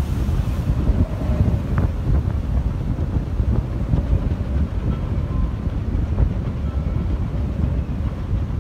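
Strong wind buffeting the microphone: a heavy, irregular low rumble with no let-up.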